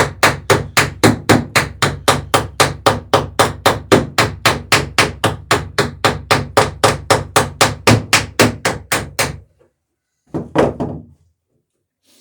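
Hammer peening a rivet over on a wooden dory's lapped sheer strake: a fast, even run of sharp metal-on-metal strikes, about three and a half a second, that stops after about nine seconds. A second later comes one short clunk.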